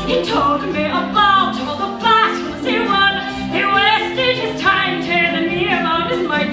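A woman singing a musical-theatre song in full voice with vibrato, over instrumental accompaniment.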